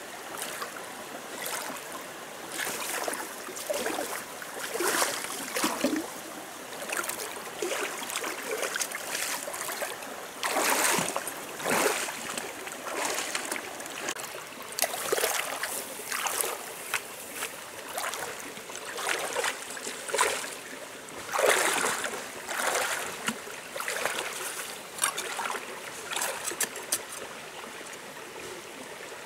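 Shallow rocky stream running steadily, with irregular splashes every second or two as a person wades through it and stirs the water with her hands.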